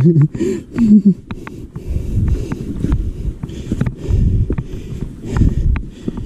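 Mountain bike being ridden up a rough dirt trail: low rumble of the ride and wind on the microphone, with scattered sharp clicks and rattles from the bike over stones. A short voice sound comes in the first second.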